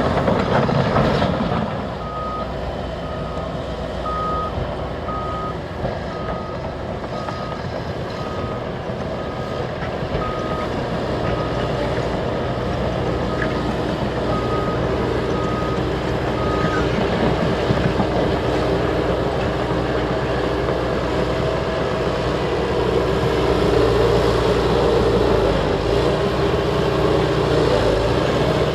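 Large diesel crawler dozers running steadily under load. A reversing alarm beeps about once a second for some fifteen seconds, then stops while the engines keep running. The engine noise grows louder near the end.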